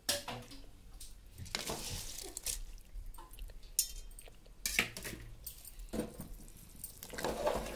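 Rice being tipped into a pressure cooker of boiling water, with scattered clinks and knocks of a utensil against the metal pot.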